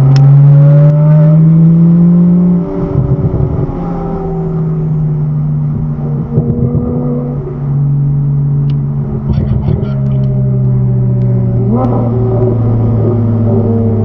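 Porsche 911 flat-six engines accelerating on throttle, heard from inside the following car's cabin. The pitch climbs for the first couple of seconds, then the throttle lifts with a spell of crackling. The engine pulls again, gives a quick rising rev about twelve seconds in, and settles into steady running.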